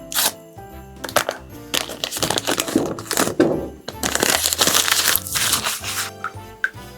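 Background music with steady held notes, with irregular bursts of noise from kitchen handling over it, densest a few seconds in.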